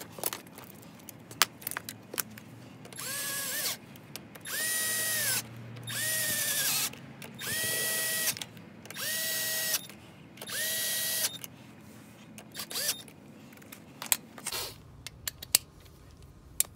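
Small cordless power tool with a socket running the flange nuts of a freewheeling hub snug: six short runs of about a second each, the motor whine climbing at each start and dropping at each stop. Sharp metal clicks of the socket and hardware come between the runs.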